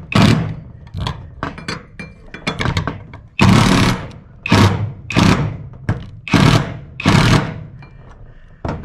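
Power driver with a socket driving a large hex-head screw through an aluminium bracket into a corrugated metal roof. It runs in repeated short bursts, nearly one a second, as the trigger is pulled again and again.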